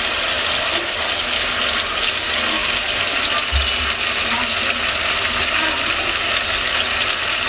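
Steady sizzling hiss of meat and tomato masala frying in oil.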